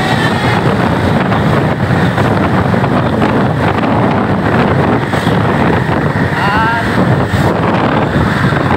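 Loud vehicle and road noise from a bus on the move, with heavy wind buffeting the microphone. A brief wavering tone sounds about six and a half seconds in.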